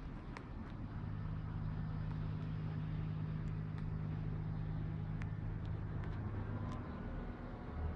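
Diesel truck engine running steadily at idle, a low hum that grows a little louder about a second in, with a few faint ticks.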